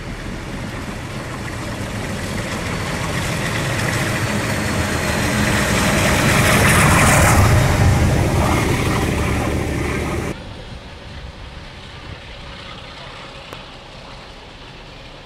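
The trailing 45 class diesel locomotive 4501 and the tail of the train passing beneath: a diesel engine running over wheel and rail noise, building to its loudest about seven seconds in. It cuts off suddenly at about ten seconds to a fainter, steady distant rumble.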